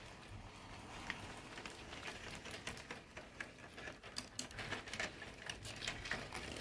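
HO scale model train rolling past, its wheels on the rails making a rapid, irregular clicking and rattling over a low hum. The clicking grows louder and denser from about two seconds in as the cars come close.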